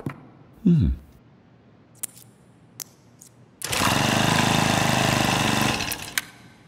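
A few light clicks, then a small Honda Super Cub-style motorcycle engine starts abruptly and runs steadily for about two seconds before dying away.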